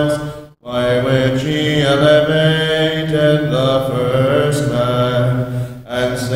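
Voices chanting together in Byzantine chant, a slow melody, breaking off for a breath about half a second in and again near the end.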